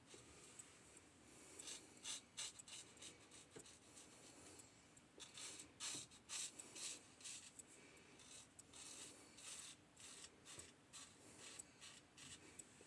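Single-edge safety razor (an 1895 Star lather catcher with a Gem blade) scraping through stubble: many short, quiet, scratchy strokes at an uneven pace.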